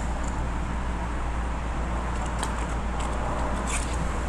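Steady low hum and hiss of workshop background noise, with a few small sharp clicks of phone parts and tools being handled during reassembly, the last about a second before the end.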